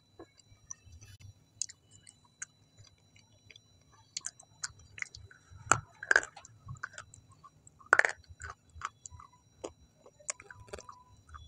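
Close-miked chewing and wet mouth clicks of a person eating, with a louder bite about six seconds in as more food goes into the mouth.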